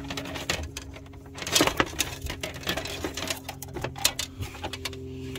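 Handling noise as a black plastic air-suspension line is pulled and fed through a car's spare-tire well: quick irregular clicks, taps and rustles, with a burst of louder knocks about one and a half seconds in. A steady low hum runs underneath.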